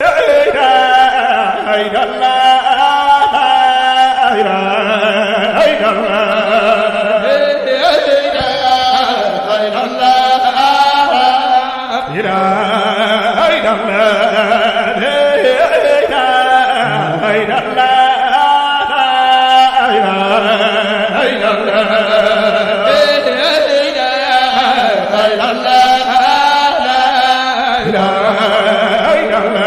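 A man's voice chanting a sung Arabic religious poem in a long, ornamented melody, held continuously with only brief breaths.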